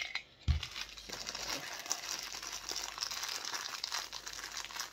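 Black plastic bag around a vinyl figure crinkling as it is handled and squeezed in the hands. There is a dull thump about half a second in.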